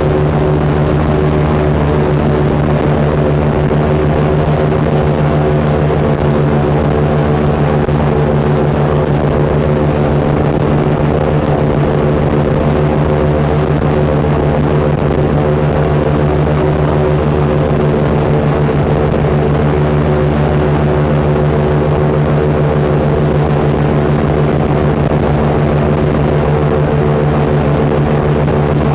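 Airboat's engine and air propeller running at a steady cruising speed, a loud, even drone with a strong low hum that holds without change.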